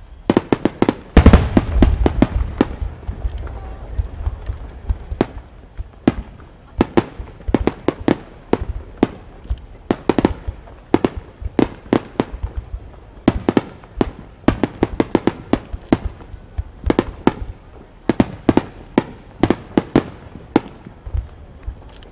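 Large aerial firework shells from a rapid-fire display bursting in quick irregular volleys. Many sharp bangs with low rumbling tails, densest and loudest about a second in.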